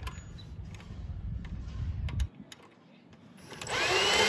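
A 20V cordless drill spins up briefly near the end to tighten the throttle-cable clamp bolt on a small engine. Its motor whine rises in pitch.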